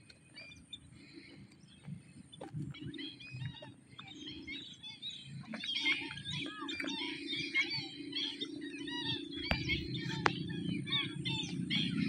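Many small birds chirping and chattering together, the calls growing denser and louder about halfway through, over a low steady hum.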